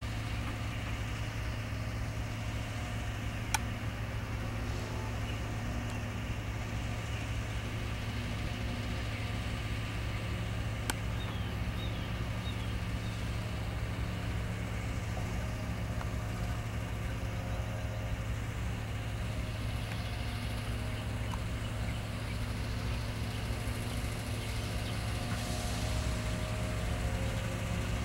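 CSX diesel-electric locomotives idling: a steady, even low engine hum that does not change, with a faint click or two.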